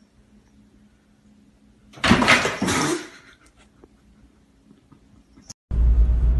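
A loud clatter lasting about a second, about two seconds in, as a cat scrambles off a glass-topped table by the window blinds and onto a tiled floor. Near the end the sound cuts to the steady low rumble of a car running.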